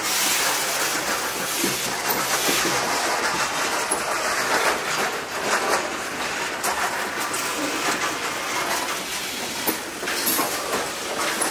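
Covered hopper cars of a freight train rolling past on curved track: a steady rush of steel wheels on rail with scattered knocks, getting louder right at the start as the first car arrives.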